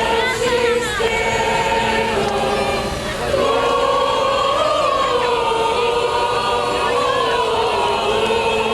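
A group of voices singing together in long held notes that shift slowly in pitch.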